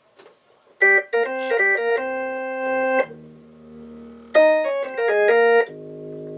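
Hammond organ played through a late-model Leslie 122's tube amplifier on test: short chords start about a second in, then a held chord, quieter low notes, and more chords. The sound is light on bass, which the player finds weaker than he expects.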